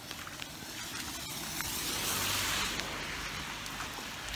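Steady rain falling, with faint ticks of drops and a broad hiss that swells and fades around the middle.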